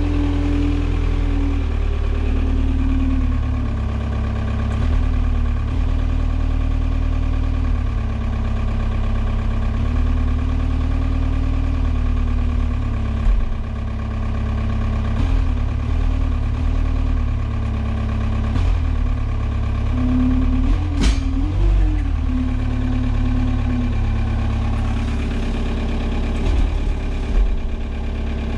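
Forklift running while it handles a pallet: a steady low drone with a mid-pitched hum that shifts up and down in pitch as it works, heard from inside its cab. A sharp knock comes about two-thirds of the way through.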